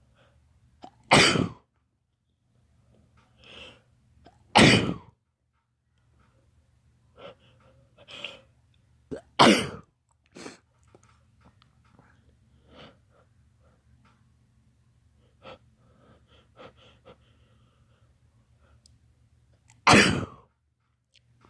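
A man sneezing four times in a fit: loud, sudden sneezes about a second, four and a half seconds, nine and a half seconds and twenty seconds in, with quieter breaths between them.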